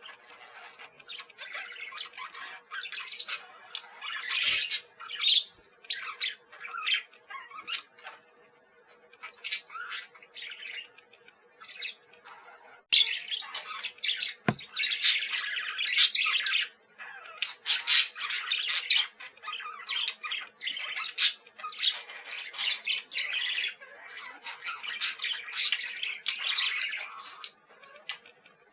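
Budgerigars chirping and chattering, with quick squawks and warbles coming in uneven bursts, thickest in the second half. A faint steady hum runs underneath.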